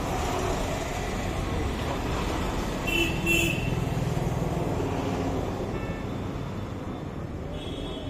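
Steady road traffic noise with a low rumble, and a vehicle horn giving two short toots about three seconds in.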